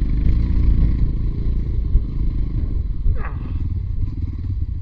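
Motorcycle engine running steadily under way, with wind rumble on the microphone. A brief high-pitched squeak sounds about three seconds in.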